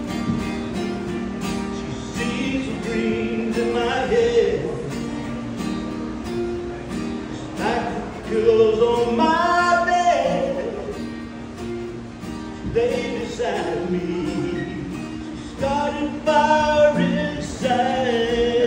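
A man singing a slow country ballad into a microphone while strumming an acoustic guitar. He holds long notes, the loudest about halfway through and again near the end.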